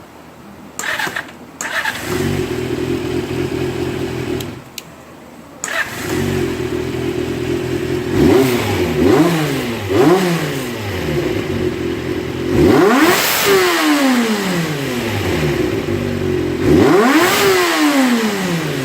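Honda CBX400F's air-cooled inline-four idling, cutting out briefly twice near the start. It then takes three quick throttle blips and two full revs that climb sharply and fall back to idle. The carburetors are freshly rebuilt with high-rev internal parts, meant to make the engine rev up more sharply.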